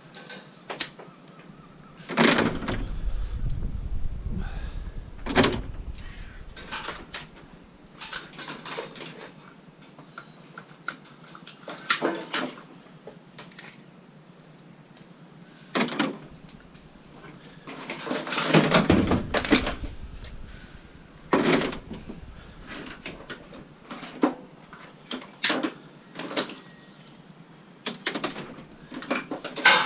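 Scrap metal being handled and taken apart: irregular metallic knocks and clatters, with heavier thumps about two seconds in and again just before the twenty-second mark.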